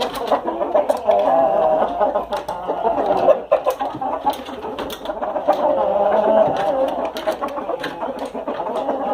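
Chickens clucking in a steady warbling chatter, with frequent sharp clicks.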